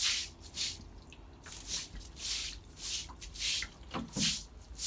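Short straw hand broom scrubbing a wet concrete floor in quick swishing strokes, about two a second.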